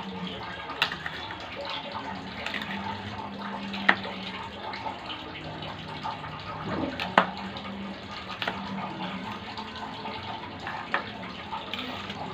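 A small kitchen knife slicing red chili peppers on a table, with a handful of sharp taps as the blade meets the surface, the clearest about four and seven seconds in, over a steady background hiss.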